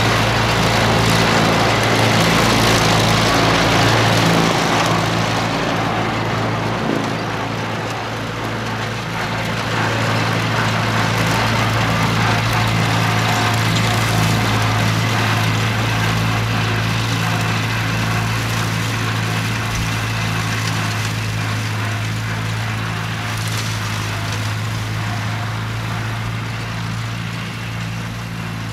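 1948 Farmall Cub's four-cylinder flathead engine running steadily under load while its belly-mounted mower chops through grass and brush. The sound eases a little about seven seconds in as the tractor pulls away.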